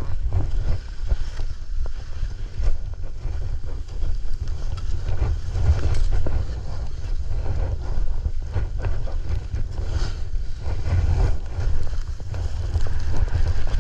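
Wind buffeting the microphone of a head-mounted action camera while skiing downhill, a heavy low rumble, with skis swishing and scraping through the snow in irregular turns.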